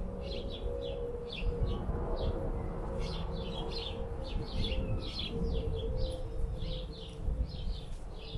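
Small birds chirping, many quick short chirps a second, over a steady low hum and a low rumble.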